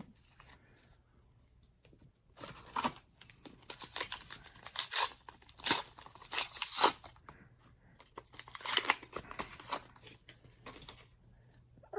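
Foil trading-card booster pack being torn open, with crinkling of the wrapper in irregular bursts, most of it in the middle of the stretch and a shorter burst later.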